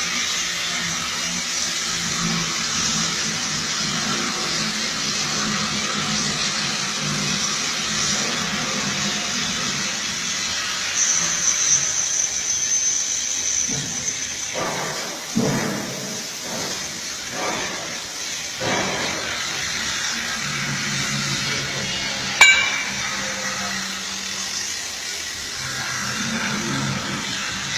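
CNC cutting torch on thick steel plate running with a steady hiss over a low machine hum, with a few louder uneven swells partway through and one sharp click late on.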